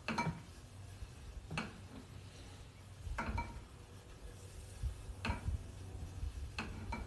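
Chopsticks lifting boiled dumplings out of a pot into a ceramic bowl: about six sharp, lightly ringing clinks of chopsticks against the bowl and pot, one every second or two.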